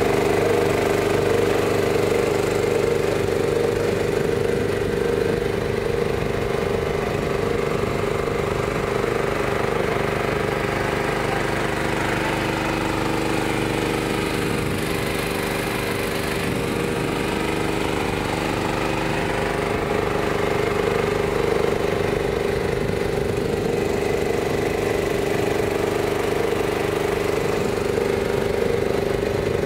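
Small outboard motor on a bamboo raft running at a steady speed, an even engine hum throughout.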